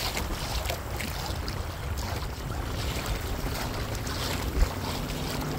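Wind buffeting the microphone as a steady low rumble, with water lapping at a kayak, and one short low thump about four and a half seconds in.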